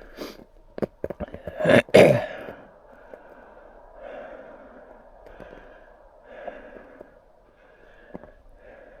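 Heavy breathing close to the microphone, in slow, evenly paced breaths. A few sharp clicks come in the first two seconds, and a loud breathy burst comes about two seconds in.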